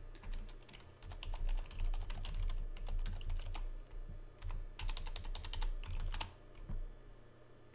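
Typing on a computer keyboard: a run of quick, irregular key clicks, with a faster burst about five seconds in, over a steady low hum.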